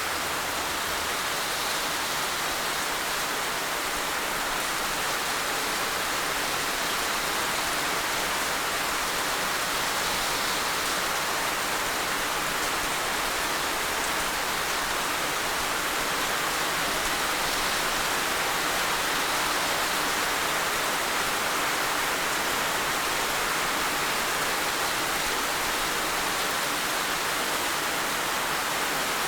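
Heavy rain falling steadily: an even, dense hiss of many drops with no single drops or thunder standing out.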